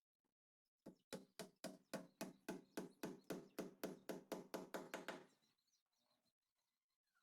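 A rapid, evenly spaced series of about seventeen knocks, roughly four a second, each with a short ringing tone; they start about a second in and stop abruptly after about four seconds.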